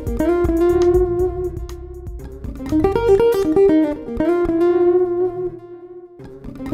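Plucked guitar music. Quick runs of notes each settle into a long held note, the phrase repeats, and a new run starts near the end.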